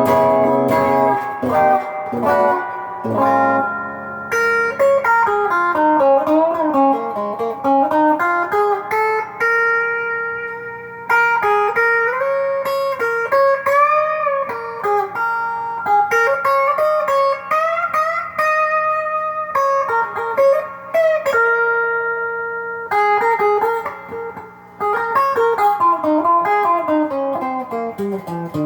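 Telecaster-style electric guitar on its split bridge humbucker (single-coil mode) played through a Sweet Cream overdrive pedal, with lead lines of single notes, string bends and vibrato, a few chords near the start and a descending run near the end.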